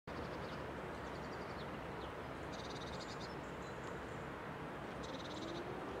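Small birds chirping in short rapid trills, twice, over a steady outdoor background hiss. Near the end a faint, distant E57 motor siren begins to wind up in a slowly rising tone.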